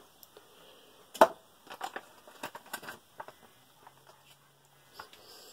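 A ration food pouch being handled and opened: a sharp click about a second in, then scattered crinkles and light taps.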